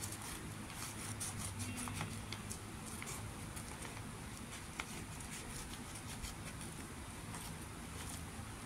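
Scissors snipping paper, a scatter of small irregular clicks over a low steady hum.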